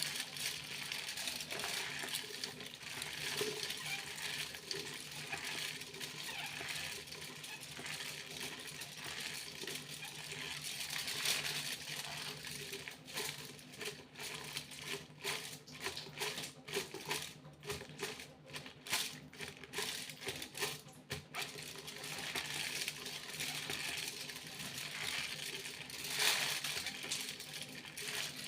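Aluminium foil being crinkled and rustled by hand in close-up, a steady crinkling that breaks into a run of separate sharp crackles in the middle before settling back into continuous rustling.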